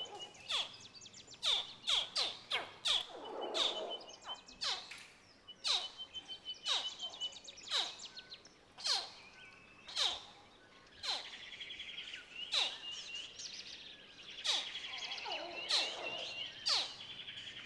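Crocodile hatchlings calling: a long series of short, high chirps, each dropping sharply in pitch, repeated every half second to a second.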